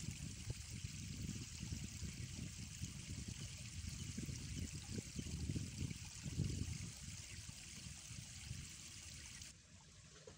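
Outdoor riverside ambience: a steady hiss with an uneven, gusty low rumble, which turns quieter and loses the hiss at a cut about nine and a half seconds in.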